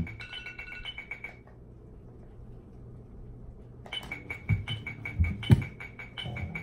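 Fast, steady metronome clicks, about four a second, that stop about a second and a half in and start again near four seconds. After they restart there are a few soft, low thumps.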